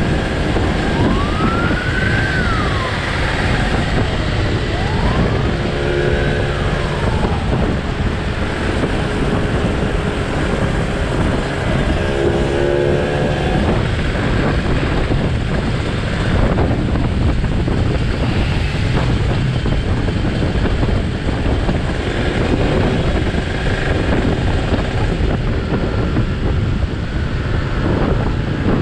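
Onboard sound of a Yamaha 125Z running a two-stroke Kawasaki Ninja R engine, ridden at speed, with steady engine noise and wind rushing over the microphone. In the first few seconds a wail rises and falls twice, like a siren.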